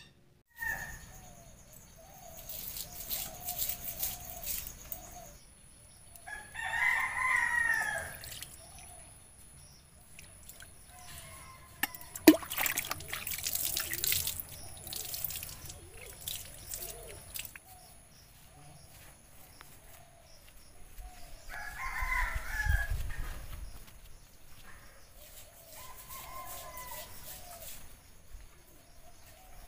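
Roosters crowing three times, each crow about a second and a half long, over soft clucking of chickens. Scattered rustling and clatter run between the crows, with a sharp knock about twelve seconds in.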